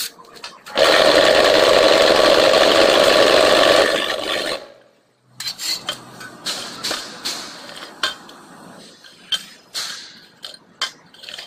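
A Zonshare QTJ4-40 cement block machine's vibration motor runs loud and steady for about four seconds, shaking the mould full of damp concrete mix, then cuts off. Scraping and scattered knocks follow as the mix is spread and levelled in the mould by hand.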